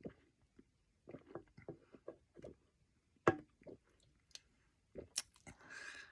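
A person gulping down Coke: a run of short, wet swallowing clicks with one sharper click a little past the middle, then a breathy exhale starting near the end.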